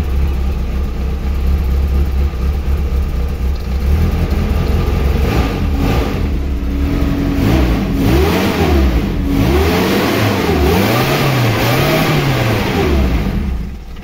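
Daihatsu Espass engine running on LPG, a bit rough, first at a steady idle and then revved up and down several times from about halfway through, while the gas supply is adjusted.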